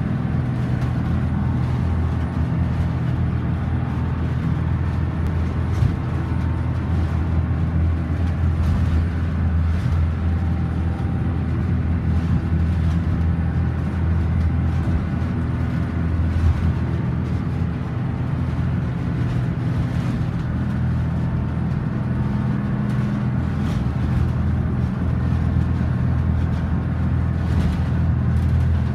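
Diesel inboard engine of a Beneteau Swift Trawler 34 motor yacht running steadily under way, a low even drone heard inside the wheelhouse. The rush and slap of water along the hull runs faintly beneath it.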